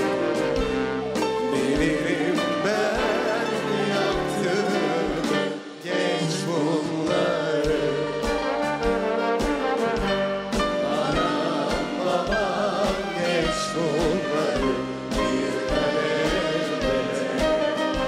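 Live band with a brass section, strings and piano playing a Turkish song, with a man and a woman singing a duet over it. There is a brief break in the music about six seconds in.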